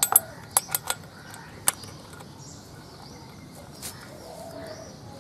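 Several sharp metal clinks in the first two seconds from a T-handle box spanner working the guide-bar nuts on a chainsaw, then faint birdsong in the background.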